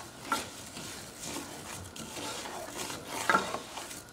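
Wooden spoon stirring dry basmati rice as it toasts in melted butter in a frying pan: a scraping rustle of grains over a light sizzle, with a couple of brief louder clicks, one about a third of a second in and one near the end.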